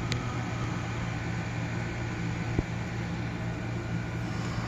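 Steady low hum with an even background hiss, and a single small sharp click about two and a half seconds in.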